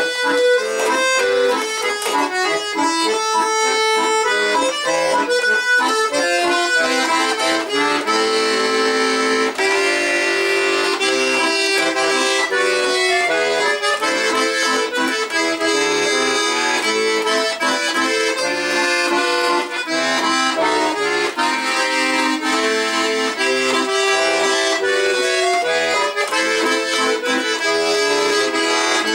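Bayan, a Russian chromatic button accordion, played solo: a continuous melody over sustained chords with its reeds sounding, demonstrating the instrument's tone.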